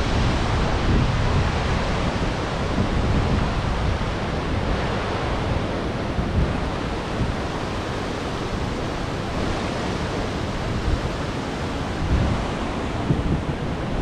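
Steady rush of a nearby waterfall and river, with wind buffeting the microphone in low gusts.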